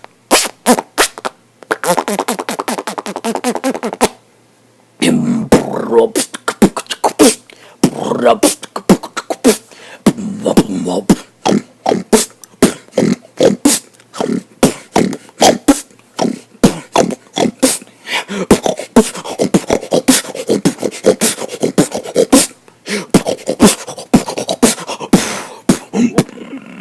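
Human beatboxing: rapid mouth-made kicks, snares and hi-hat clicks over hummed bass lines, with a short pause about four seconds in.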